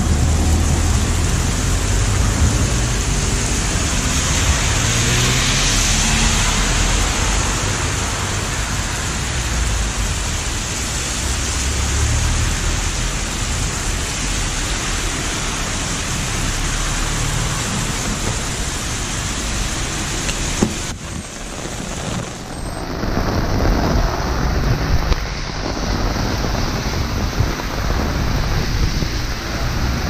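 Heavy rain pouring onto pavement and a wet road, a steady hiss with a low rumble beneath it. About two-thirds of the way through the sound dips briefly and comes back duller.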